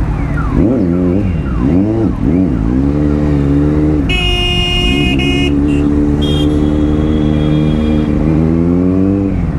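Kawasaki Z900's inline-four engine revving up and down several times at low speed in traffic, then running at a steady pitch before rising once more and dropping off as the throttle closes near the end. A horn honks twice about four seconds in, with one more short toot a little later.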